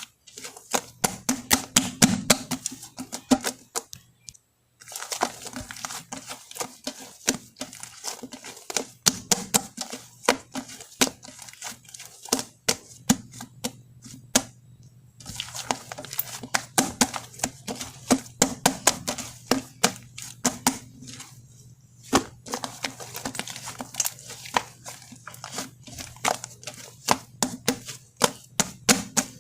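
Shaving-foam slime being squished and worked by hand, giving dense crackling clicks and pops in long runs, broken by brief pauses about 4, 14 and 22 seconds in. A low steady hum runs underneath.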